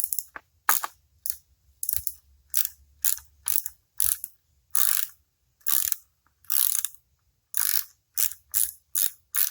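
Ratchet wrench worked back and forth in short strokes, clicking as it backs out a head-cover bolt on a Chrysler 350 V8 B-block; about sixteen strokes, coming faster near the end.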